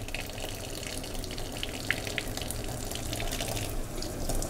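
Kitchen tap running as ají gustoso peppers are rinsed under it, with a few light clicks of handling.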